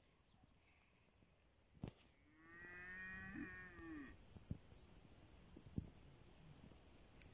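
A cow moos once, faintly, about two seconds in: a single drawn-out call of nearly two seconds whose pitch rises and then falls. A few sharp clicks come before and after it.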